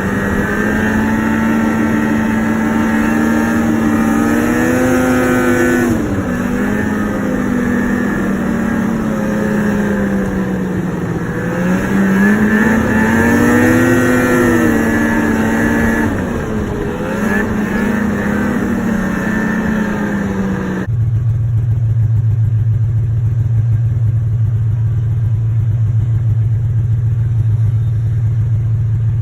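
Two-stroke snowmobile engine running under way, its pitch rising and falling as the throttle is worked. About two-thirds through the sound changes abruptly to a steady low drone.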